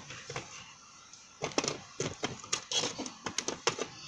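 Small plastic toy figure handled and tapped about on a play set, making short, sharp, irregular clicks, about three or four a second, after a quiet first second.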